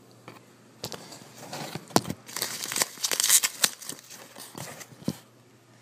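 Tissue paper and packaging being handled and crumpled, a dense run of crinkling with sharp crackles, loudest in the middle and stopping about a second before the end.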